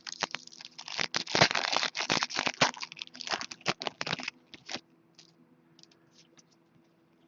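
Hockey trading cards and their packaging being handled: a dense run of quick, scratchy clicks and rustles for about four seconds, thinning to a few faint clicks.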